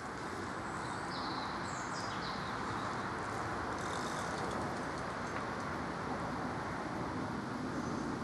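Steady rush of distant road traffic, with a few short bird chirps about one to two and a half seconds in.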